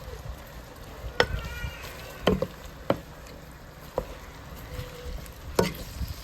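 A spoon stirring chopped onions, peppers and tomatoes frying in a pot, knocking against the pot about five times at uneven intervals.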